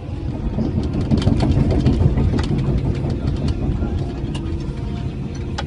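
Cat 312EL excavator's diesel engine running steadily, heard from inside the cab, with scattered sharp clicks and rattles over it.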